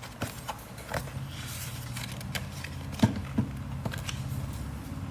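Picture book being handled as it is opened: a few light taps and a brief paper rustle, over a steady low hum.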